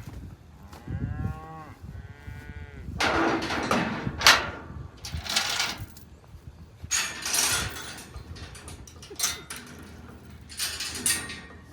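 Cattle mooing: two short calls that rise and fall in pitch in the first few seconds, followed by several louder, rougher bellows.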